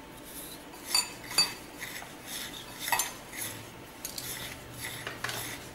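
Metal spoon stirring powdered jaggery into red poha flour in a glass bowl: soft repeated scraping through the powder, with a few sharp clinks of the spoon against the glass, two close together about a second in.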